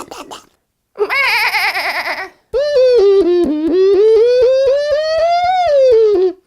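A short warbling, wavering sound effect, then a long wailing voice-like cry whose pitch wavers, climbs slowly and drops away near the end.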